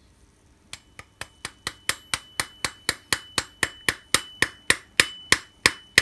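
A soft-faced mallet tapping a steel bevel gear onto a keyed shaft, about four steady taps a second that grow harder. A high ring from the steel part sounds under the taps. The gear is a snug fit on the shaft.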